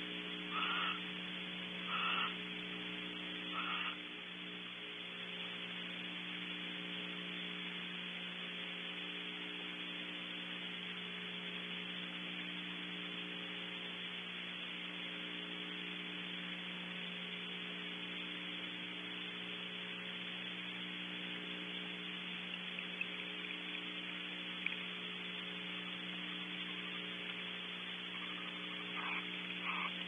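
Steady electrical mains hum and hiss from a nest-cavity camera microphone. A few short animal calls sound in the first four seconds and again right at the end.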